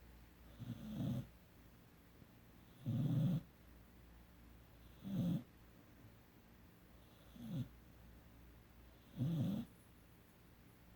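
A 17-week-old Rottweiler–Mastiff puppy snoring in its sleep: five short, rasping snores, one about every two seconds.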